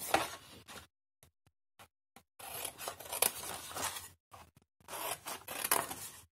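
Small craft scissors snipping through cardstock, cutting slits up to the fold lines, in three runs of snips with short pauses between them.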